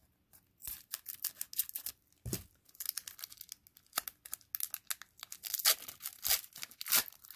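A trading card pack's wrapper being torn open and crinkled by hand: an irregular run of short crackling tears that starts about half a second in.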